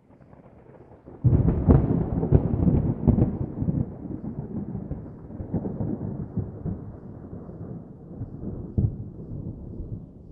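Thunderclap: a low rumble builds, then about a second in a sudden loud crack with crackling strokes breaks out and rolls on as a long rumble that slowly dies away, with one more sharp crack near the end.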